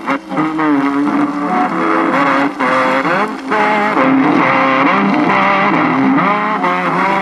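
Music playing through the speaker of a restored late-1930s radio-phonograph, with a thin, narrow sound that has no deep bass and no bright treble.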